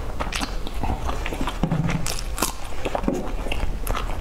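Close-up eating sounds of a person biting into and chewing a soft boiled dumpling: irregular mouth clicks and smacks.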